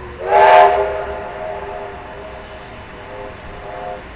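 Steam locomotive whistle giving one long blast: it opens with a loud rush of steam, settles into a steady chord of several tones, and cuts off suddenly about four seconds in.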